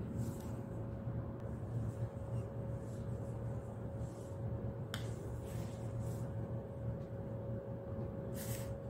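Steady low room hum with a faint steady tone, a single sharp click about five seconds in and a brief hiss near the end.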